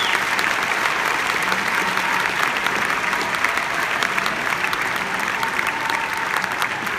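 Large audience applauding steadily, a dense, even mass of clapping.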